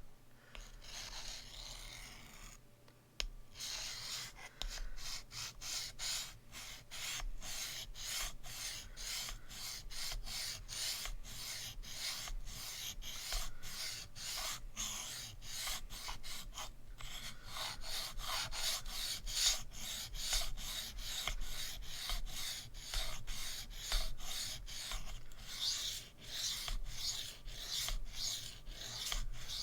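Steel knife blade scraped in quick back-and-forth strokes across a diamond sharpening plate, about two strokes a second, with a brief pause about three seconds in. This is freehand reprofiling of an S35VN blade on the Sharpal 162N to raise a burr.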